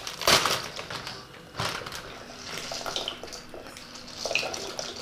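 A plastic packet of dry pasta crinkling and rattling as it is handled, twice sharply near the start, then pasta tipped into a pot of boiling water with the water bubbling.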